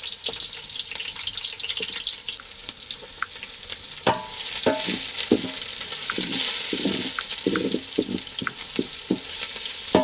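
Onions sizzling in hot oil in a saucepan, with a spoon stirring and knocking against the pan from about four seconds in.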